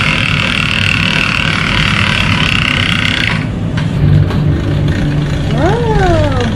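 Kitchen machinery running with a steady low hum; a higher hissing sound cuts off about three seconds in, and a short whistle-like tone rises and falls near the end.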